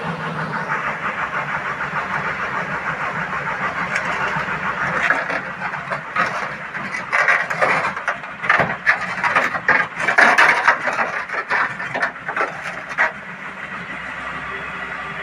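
Hyundai excavator's diesel engine running, with a run of loud metallic clanks and knocks from about five seconds in until about thirteen seconds, as the machine is unloaded. After that the engine runs on steadily and a little quieter.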